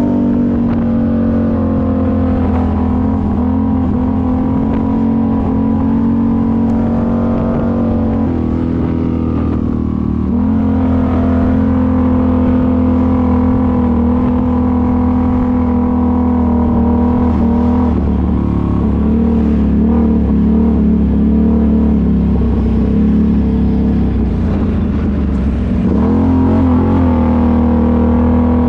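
ATV engine running at fairly steady revs, its pitch dipping and picking up again a few times.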